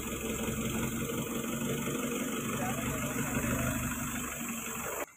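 Diesel engine of a pick-and-carry hydraulic crane running steadily at a low, even speed while the crane holds a heavy load on its hook. The sound cuts off suddenly near the end.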